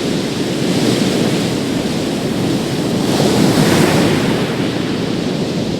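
Big sea waves roaring as they break on a beach, a continuous surf wash with one crash swelling louder about three seconds in; wind buffets the microphone.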